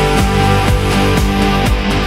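Background music: an instrumental track with sustained pitched notes and a steady drum beat.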